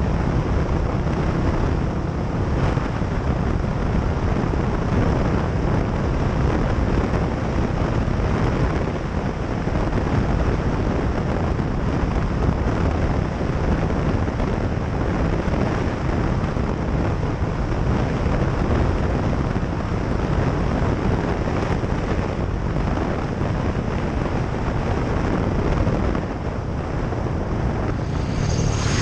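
Steady wind rushing over the microphone on a moving motorcycle, with the motorcycle's engine and road noise running underneath.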